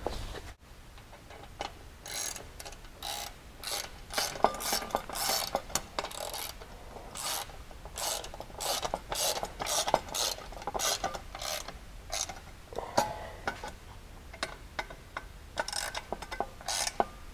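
Hand ratchet wrench clicking in short runs of rapid strokes, with brief pauses, as the front bolts of an aluminium skid plate are tightened.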